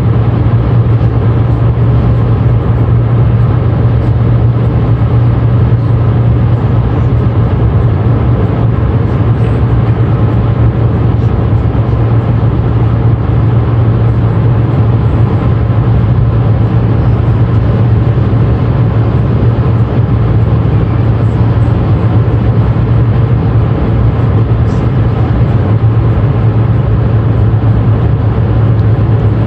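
Steady cabin noise of a car cruising at motorway speed: tyre and road rumble with a constant deep hum, unchanging throughout.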